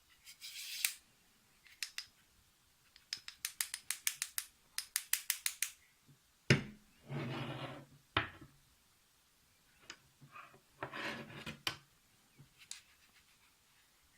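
A linear bearing block on a CNC rail being slid back and forth, with rough scraping strokes and a run of rapid clicks, about five a second, as the bad block's bearing catches; a single knock about halfway through.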